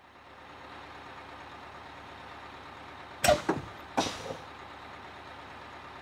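Vehicle sound effect for a toy bus: a steady engine-like noise, with two sharp, loud bursts about three-quarters of a second apart a little past the middle.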